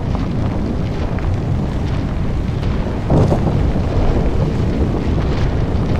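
Continuous low rumble of a high-rise tower collapsing in a controlled explosive demolition, debris falling and dust billowing, swelling louder about three seconds in.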